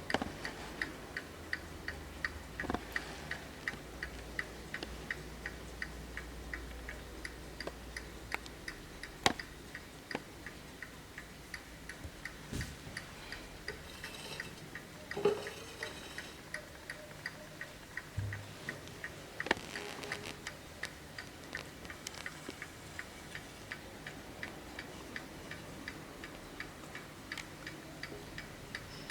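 Hermle skeleton mantel clock's mechanical movement ticking in a fast, even rhythm. A few louder knocks stand out at irregular moments.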